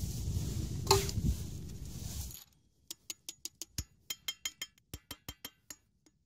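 Steady outdoor noise for about two and a half seconds, then a quick, irregular run of about twenty small metallic clinks: pieces of scrap lead being dropped into a tin can for melting.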